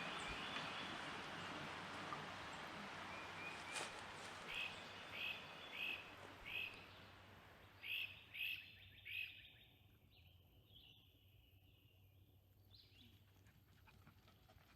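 A bird calling in a series of short chirps, one about every half to three-quarters of a second for several seconds, over a steady outdoor hiss that fades away about two-thirds of the way through, leaving near quiet.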